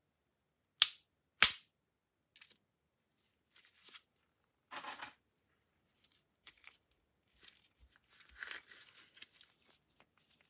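Two sharp metallic clacks about two-thirds of a second apart as the Glock 17C's slide is worked by hand, followed by a brief rustle and a string of quieter small clicks as a small metal key is handled.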